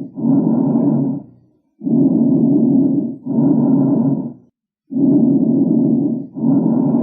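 Recorded lung sounds heard through a stethoscope: repeated breaths about every three seconds, each a rough, noisy rush in two parts (in and out) with a short silence between breaths.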